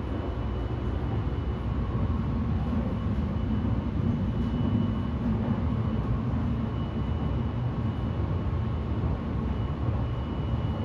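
Cabin running noise of the Sunrise Izumo sleeper train, a JR 285 series electric multiple unit, travelling at speed: a steady low rumble from the wheels and track with a faint high whine.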